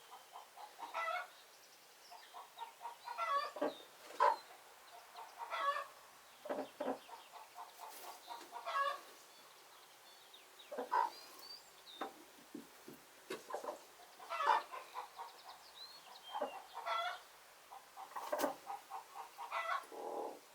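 Domestic chickens clucking and calling softly, a flock of hens giving short, scattered clucks one after another at an easy, unhurried pace.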